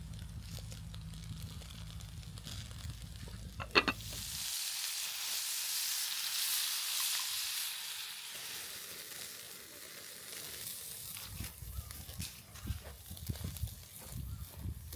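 A low steady hum, then, after a click about four seconds in, meat sizzling loudly in a hot pan for several seconds before settling into lighter, uneven crackling.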